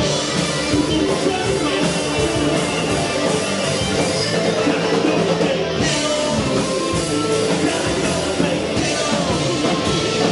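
Live rock band playing through amplification: electric guitars and bass with a drum beat, and a lead singer on microphone.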